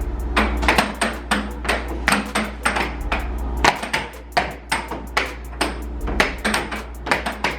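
Air hockey puck being hit back and forth by mallets and clacking off the table rails: rapid, irregular sharp knocks, several a second, over a steady low hum.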